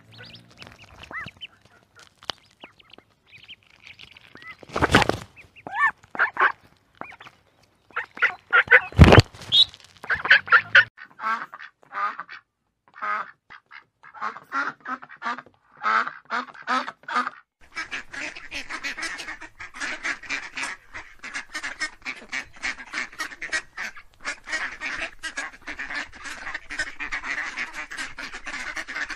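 Ducks and geese calling: scattered quacks with two loud sharp bursts in the first third, then evenly repeated quacks, and for the last third a flock of mallards and geese quacking and honking together in a dense, continuous chorus.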